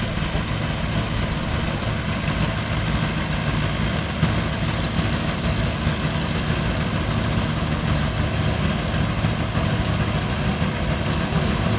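Massey Harris 735 combine harvester's engine running at a steady speed, a low even engine note that does not change.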